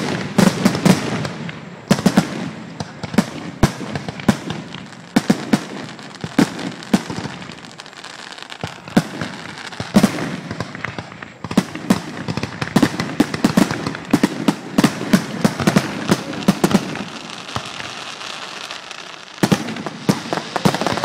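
Fireworks show finale: a rapid, continuous string of aerial shell bursts, sharp bangs several a second over steady crackling. The barrage eases briefly around the middle and picks up hard again near the end.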